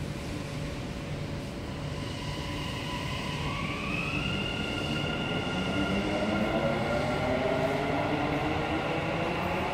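Dubai Metro train running, with a rumble under an electric whine that rises in pitch about three seconds in, then a lower whine that climbs again toward the end as the sound grows louder.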